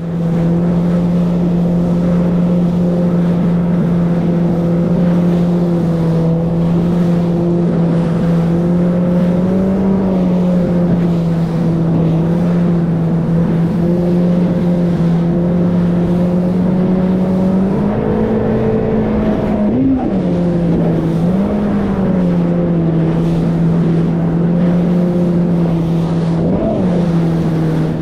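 Yamaha WaveRunner jet ski engine running at a steady cruising speed, with a few brief rises in pitch as the throttle changes.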